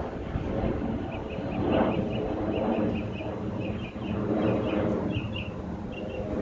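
Outdoor field recording: short, repeated bird chirps, several a second, over a rough low rumble that swells and fades.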